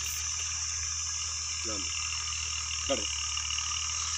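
Steady chirring chorus of insects over a low steady hum, with two short rising calls or squeaks about halfway through.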